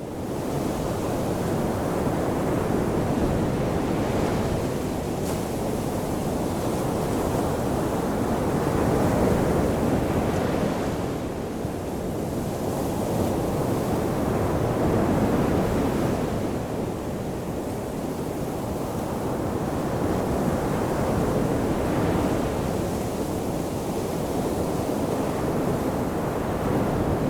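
Ocean surf washing onto the shore: a steady rushing that swells and eases about every six seconds as the waves come in.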